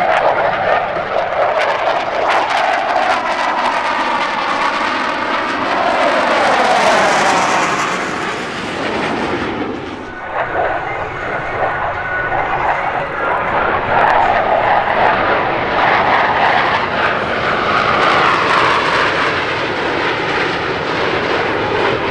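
Blue Angels F/A-18 Hornet jets making low passes, a loud jet roar with a sweeping, phasing sound as the aircraft go by. It drops away briefly about ten seconds in, then builds again as the formation comes through.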